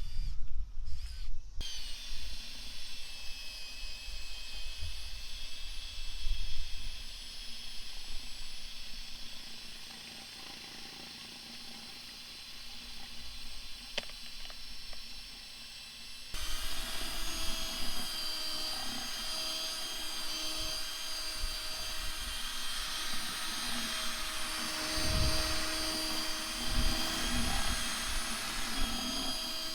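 Electric drill with a mixing paddle running, stirring Dexpan expansive demolition agent and water in a bucket: a steady motor whine that turns abruptly louder and lower about halfway through.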